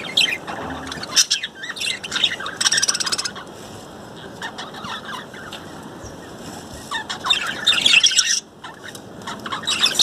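Budgerigars chirping and chattering in bursts: busy for the first three seconds, sparse chirps through the middle, then busy again about seven to eight seconds in and once more at the very end.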